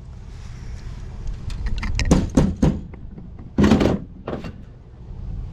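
Brass pipe fittings and tools knocking and scraping as they are handled and fitted, a few quick clunks about two seconds in and a longer clatter around three and a half seconds, over a steady low hum.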